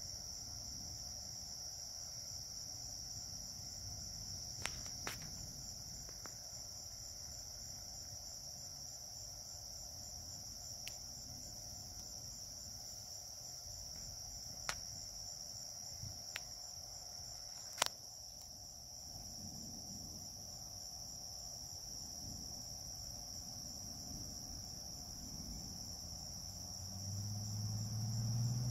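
Crickets chirping in a steady, high, continuous trill, with a few brief sharp clicks. A low rumble builds near the end.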